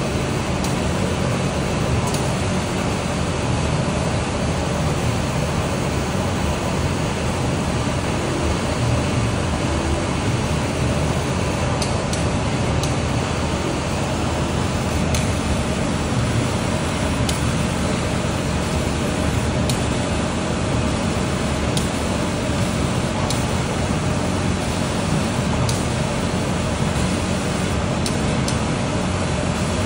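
Laser cutting machine running as it cuts a pattern in sheet stock: a steady rushing hum of air and fans, with a few faint ticks now and then.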